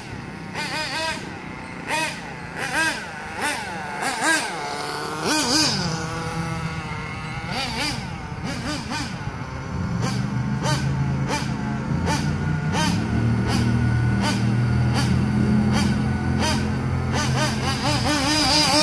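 Team Magic B8JR 1/8-scale nitro buggy engine revving up and down fast as the buggy drives, its pitch swooping up and falling away again and again. About halfway through it settles into a steadier, louder low run close by, with small rises in pitch.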